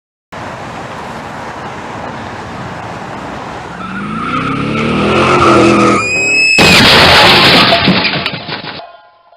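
Car crash sound effect. A car drives and its engine revs up, then its tyres screech. About six and a half seconds in comes a loud crash that rattles on for about two seconds and dies away.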